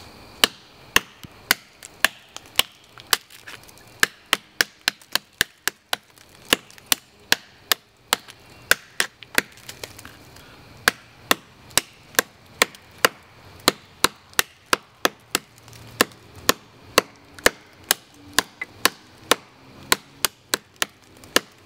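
Farson hatchet, a compact steel hatchet, chopping into a thick log: a steady run of sharp chops, about two a second, with a few short pauses.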